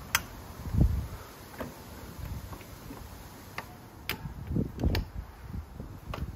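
Scattered small metal clicks and taps from an 8 mm wrench being worked onto a nut under a metal top-case mounting plate, with a few dull knocks, the loudest about a second in and near five seconds.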